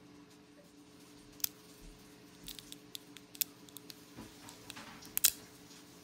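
Thin cured-resin supports of a 3D-printed miniature base snapping as they are broken off by hand: a series of small sharp cracks, loudest about five seconds in, over a low steady hum.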